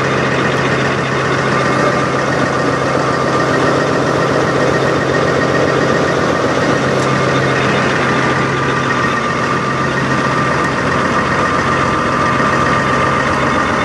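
Semi-truck diesel engine idling steadily.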